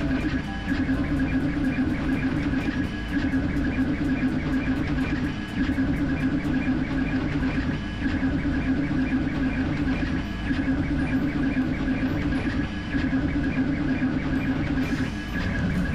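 Creality K1C 3D printer printing at high speed: its stepper motors hum and whine as the print head shuttles back and forth, with about four ticks a second and a brief dip in the sound every two to three seconds.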